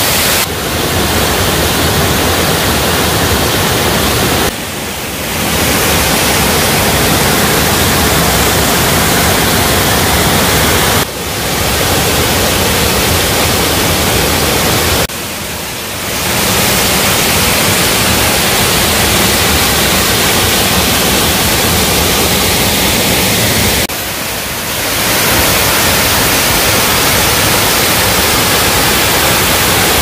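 Waterfalls pouring over rock into foaming pools: a loud, steady rush of falling water with no tone in it. It dips briefly a few times as it cuts from one fall to another.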